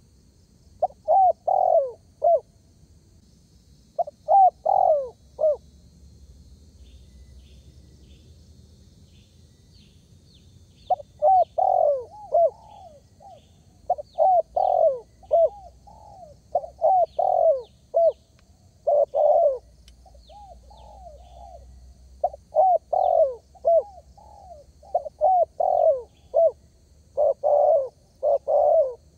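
Spotted dove (derkuku) cooing in repeated short phrases of several notes, with a pause of about five seconds near the start and then calling almost without a break. Faint high chirps of small birds run underneath.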